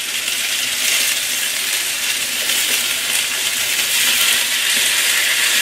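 Onion, bell peppers and mushrooms sizzling steadily in hot oil in a wok while hoisin sauce is poured over them.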